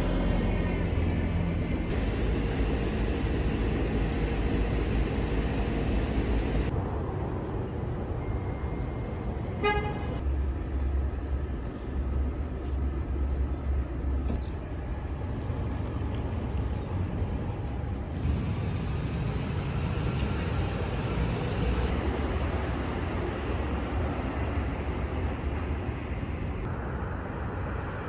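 City street traffic noise with a deep rumble of passing vehicles, its character changing abruptly several times. A car horn gives one short toot about ten seconds in.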